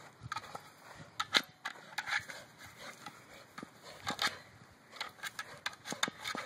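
A dog pushing, pawing and biting at a large ball on grass and dirt: irregular scuffs, scrapes and sharp knocks. The loudest knocks come about one and a half seconds in and about four seconds in.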